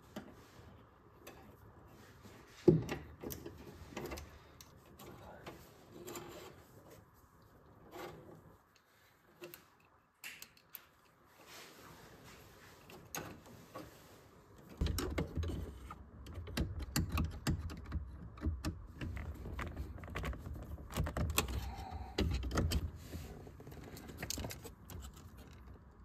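Hands working on a car's choke cable and its fittings: scattered small clicks, taps and rattles of metal parts, with a sharp knock about three seconds in and a busier stretch of clicking, knocking and rustling from about fifteen seconds on.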